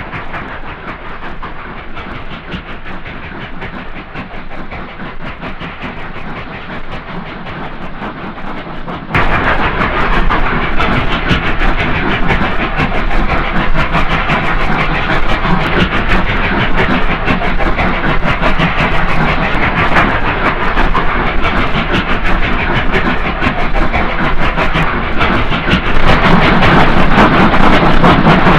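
Triple-headed steam locomotives working hard up a grade: a dense, steady train sound. It steps suddenly louder about nine seconds in and again near the end.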